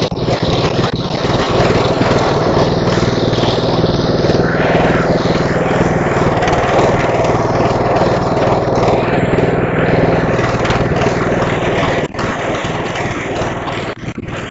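Engine of an early-1970s Mowett Mustang riding mower running steadily while the mower is driven, with a brief dip about twelve seconds in.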